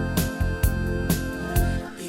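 Instrumental pop backing track of a karaoke song, with a steady beat of about two strokes a second and no vocals.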